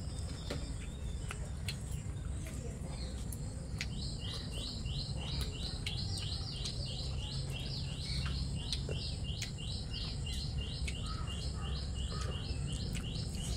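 A high chirping call repeated in a steady rhythm of about three short falling chirps a second, starting about four seconds in and keeping on, over a low steady background hum.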